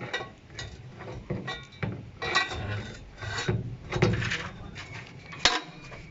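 Irregular knocking and scraping of hand work on a truck wheel, with tools and blocks being handled and set in place. There is a sharp click about five and a half seconds in.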